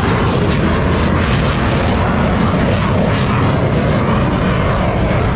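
Aircraft engine noise, loud and steady, from an aircraft in flight.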